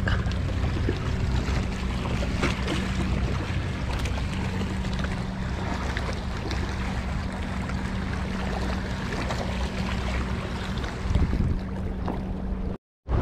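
Wind on the microphone and seawater washing among shoreline rock pools, over a steady low engine drone; the sound drops out for a moment near the end.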